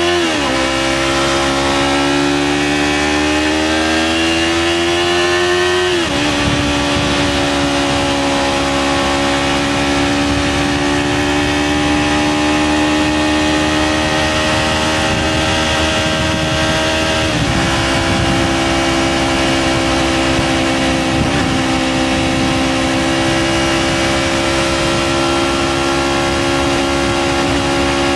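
Yamaha R3's 321 cc parallel-twin engine through an SC Project aftermarket exhaust, riding: the engine note climbs steadily and drops sharply at upshifts right at the start, about six seconds in and about seventeen seconds in, then holds a nearly steady cruising note with a brief dip around twenty-one seconds.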